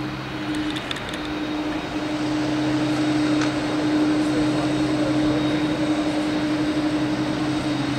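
Boeing 767 freighter's jet engines running at taxi power as the aircraft rolls past: a steady noise with a low droning tone, growing louder over the first few seconds as it comes closer, then holding steady.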